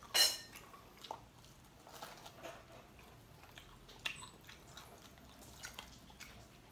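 Eating sounds from crispy fried duck being torn apart and chewed: one sharp crackle just after the start, then faint scattered clicks and chewing.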